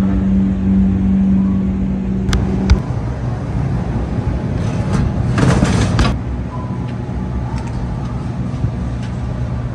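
Steady electric hum from a refrigerated display case's evaporator fan, cut off sharply with a click a little under three seconds in. After that comes a low, steady machinery rumble, with a brief louder rush of noise around the middle.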